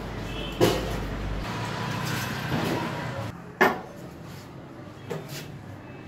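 Two sharp knocks, the first under a second in and the second about three seconds later, and a fainter one near the end, over steady background noise of a vegetable stall.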